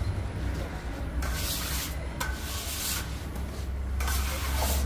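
Three rough rubbing or scraping strokes, each under a second, over a steady low hum of bakery machinery.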